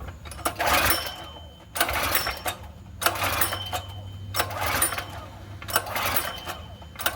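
Recoil starter of a Predator 212 small engine pulled about five times in a row, one pull every second and a bit, each a short whirring crank. The engine does not fire or even cough, despite carb cleaner having been sprayed in to prime it.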